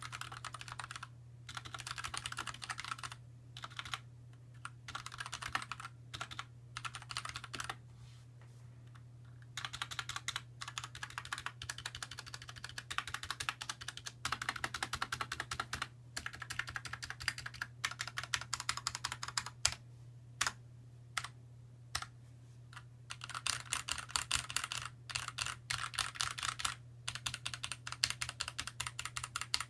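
Typing on a Xiaomi YueMi mechanical keyboard with TTC red linear switches: fast runs of keystrokes in bursts of a few seconds with short pauses between. The key presses carry no hollow case ring, and a steady low hum lies under them.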